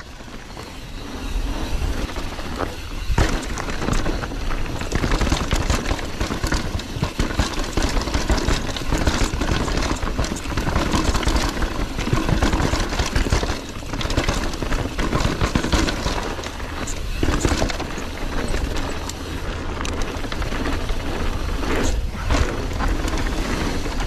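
Mountain bike riding fast down a rough dirt trail: wind rushing over the action camera's microphone and tyres running over dirt, with constant rattling and frequent sharp knocks from the bike over bumps and landings.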